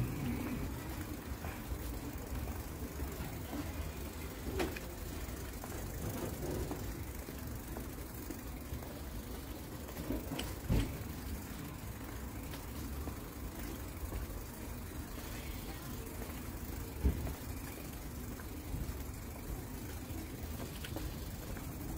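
City street ambience: a steady low hum of traffic, with a few brief knocks about five, eleven and seventeen seconds in.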